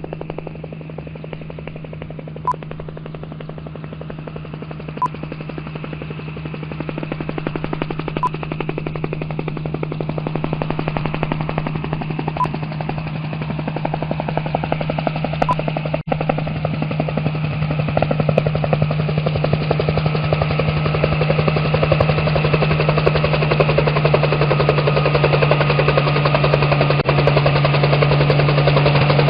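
Personal watercraft engine running with a fast, even pulsing beat and a steady hum, slowly getting louder.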